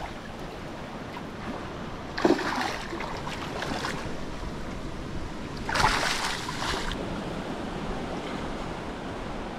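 Hooked barramundi splashing at the water's surface while being played in, in two sudden bursts: about two seconds in, and again, louder, about six seconds in.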